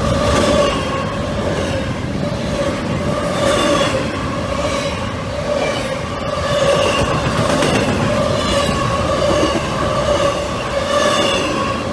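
Norfolk Southern double-stack intermodal freight train rolling past, its wagons rumbling and clattering along the rails. A steady metallic squeal from the wheels runs underneath.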